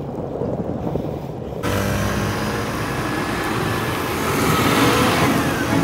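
Wind rumbling on a phone microphone while riding a bicycle, then, under two seconds in, a sudden switch to louder road noise with motor traffic passing, one passing vehicle's pitch falling near the end.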